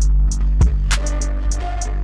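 Background music: held synth and bass tones with a few drum hits.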